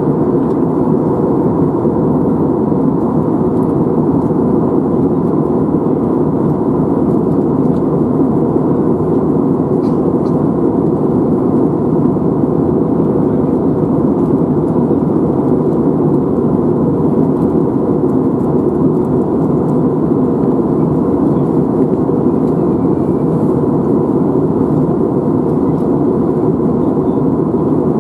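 Airliner passenger-cabin noise: a steady, even rush of engine and airflow sound with a faint steady whine, unchanging throughout.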